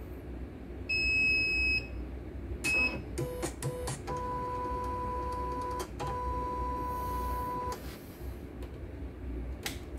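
CNY embroidery machine beeping, one longer beep then a short one, as its controls are pressed. After a few clicks the embroidery frame's drive motors run with a steady two-tone whine, broken briefly about six seconds in, as the frame travels. A single click comes near the end.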